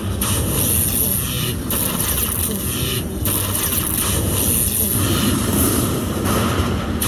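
A slot machine counting up a bonus win over a steady casino-floor din. The high hiss cuts out briefly a few times.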